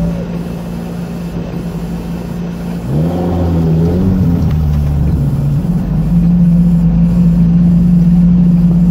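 Off-road vehicle engine running, heard from inside the cab. It revs up about three seconds in, drops back, then runs louder and steady from about six seconds.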